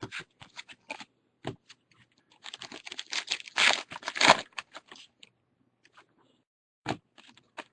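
Trading-card pack being torn open and handled: a run of crinkling, tearing rustles and small clicks, loudest a few seconds in.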